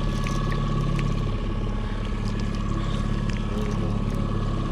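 Boat's outboard motor running steadily at slow trolling speed, with a steady whine over its low hum and scattered light clicks.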